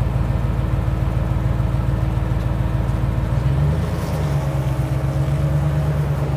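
Modified off-road Jeep's engine running at low revs while the Jeep creeps forward, with a fine steady pulsing; its note rises a little and strengthens about three and a half seconds in.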